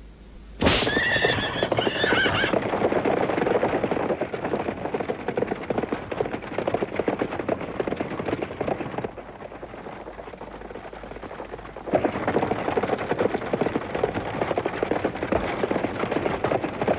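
A horse whinnies about a second in, over the start of a harnessed team galloping off with rapid, dense hoof clatter. The clatter drops for a few seconds in the middle, then comes back loud.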